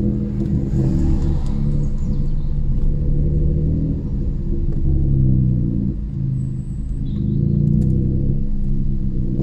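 Toyota Aygo engine and straight-piped exhaust heard from inside the cabin while driving: a loud low drone whose pitch shifts up and down a few times with the revs. The exhaust has broken off after the back-box joint, leaving only the end cap as a silencer.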